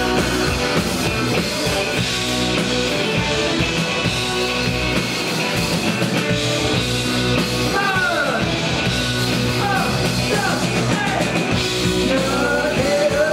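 Live rock band playing electric guitars over a drum kit. In the second half a lead guitar line of bending notes rises above the band.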